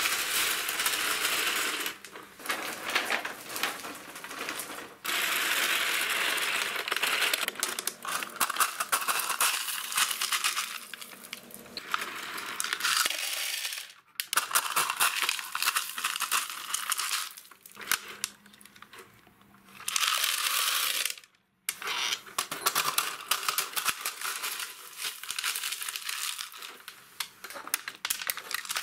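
Crushed gravel being scooped by a toy excavator's plastic bucket and poured into a plastic toy dump truck bed: small stones crunching and rattling in bursts, with short pauses between.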